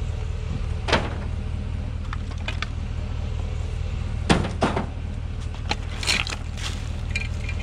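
Steady low hum of an idling vehicle engine, with a few scattered knocks and rattles from junk being handled, the loudest just past the middle.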